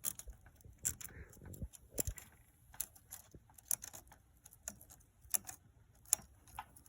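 Loose saw chain clicking and clinking in short, irregular ticks as it is pulled along and its drive links are worked into the chainsaw bar's groove.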